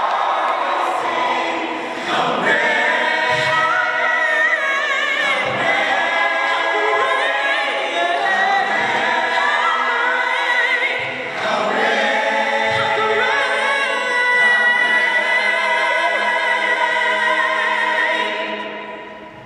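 Mixed choir of men's and women's voices singing a cappella in close gospel-style harmony, with a lead voice on a handheld microphone. The sound fades away over the last second or so as the final chord dies.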